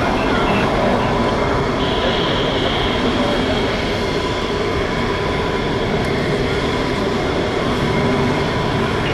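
Panavia Tornado IDS's twin RB199 turbofans in afterburner as the jet climbs away: loud, steady, deep jet noise, with a brief high whine on top about two seconds in.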